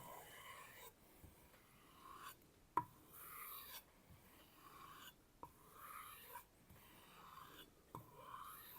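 Nakiri knife blade drawn in light strokes across a kangaroo-leather strop: faint, repeated swishing strokes about once a second, with a few light clicks, the sharpest about three seconds in. This is the final edge-refining stage of sharpening.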